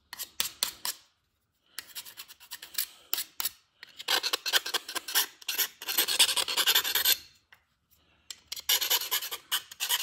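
Round chainsaw file rasping in quick back-and-forth strokes inside a drilled hole in an aluminum plate, enlarging and deburring it. The strokes come in runs, broken by short pauses about a second in and again near the end.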